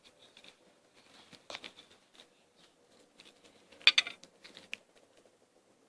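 Light clicks and rustling of a small plastic slime container being handled, with the two loudest sharp clicks about a second and a half in and about four seconds in.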